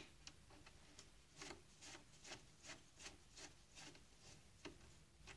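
Faint, evenly repeated scraping ticks, about two and a half a second, from hand work attaching a part in the plastic grinder-unit housing of a Saeco Royal coffee machine.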